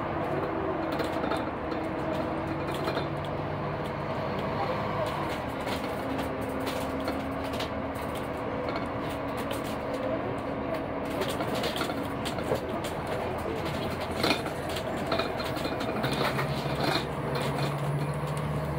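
Railway station background noise heard from above: a steady rumble of trains with hums that come and go a few times, and faint voices.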